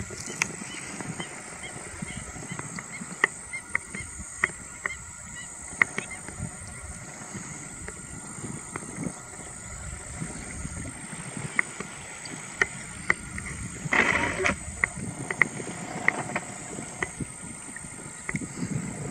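Whiskered terns in a resting flock giving scattered short, sharp calls, with a harsher burst of calling about fourteen seconds in, over a steady background hiss.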